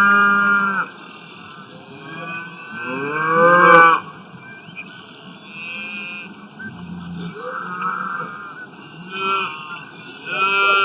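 Cattle mooing: several drawn-out moos. One fades out about a second in, the loudest swells and breaks off about four seconds in, softer moos follow, and another starts near the end.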